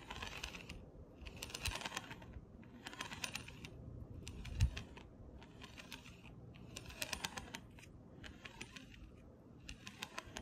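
Scorched titanium RC center driveshaft rolling along an acrylic ruler: repeated short runs of rapid ticking, one run about every second or so, with a single low thump about halfway through. The ticking is the shaft knocking as it rolls, which the owner takes for a flat spot or other damage on the shaft.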